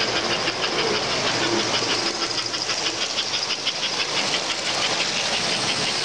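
American Flyer S-gauge model train, a diesel-style locomotive pulling freight cars, running past on the layout track: a steady mechanical running noise with a fast, even clicking, about five clicks a second.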